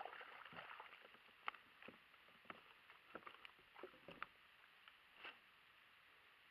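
Faint water splashing, then scattered light knocks and drips as a fish is netted and lifted from the water onto a plastic kayak.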